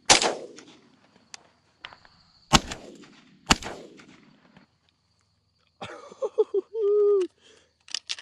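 Three shotgun shots at flying doves, each with a fading tail: one right at the start, then two about a second apart a couple of seconds later.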